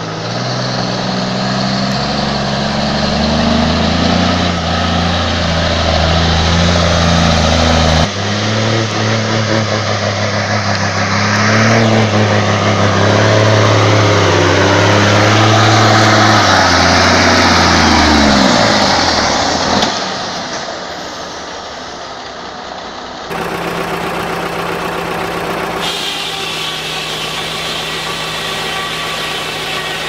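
Diesel engine of a loaded log truck pulling hard under heavy load, a deep steady drone that falls in pitch and fades a little over halfway through. After a sudden cut, a different, steadier engine hum follows.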